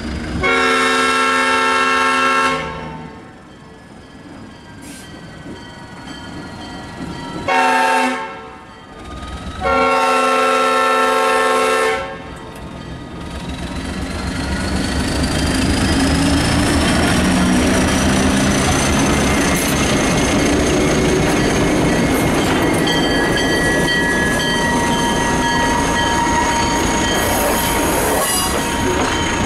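Alco RS-1 diesel locomotive's multi-chime air horn sounding a long blast, a short blast, then another long blast, the grade-crossing signal. The locomotive then passes close by, its engine growing louder and staying loud under a thin high whine, and the passenger cars rumble over the crossing near the end.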